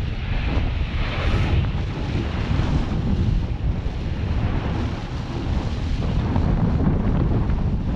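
Strong, gusty wind buffeting the microphone over the rush and splash of water along a Laser dinghy's hull as it sails fast on a reach. The water hiss is a little brighter in the first second or two.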